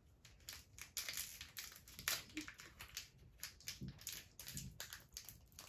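Foil Pokémon booster pack wrapper crinkling as it is worked open by hand, in many short, irregular crackles.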